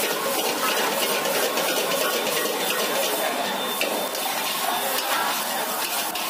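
Metal ladle and spatula clanking and scraping against a wok as fried rice is tossed and stirred, many quick clicks and clanks over a steady hiss of the gas burner and sizzling.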